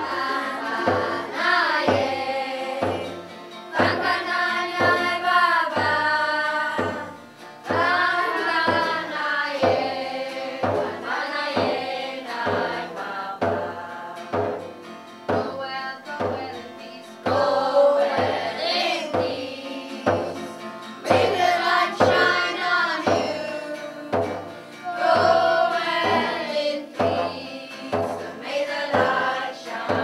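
A group of children singing a song together over a steady drum beat.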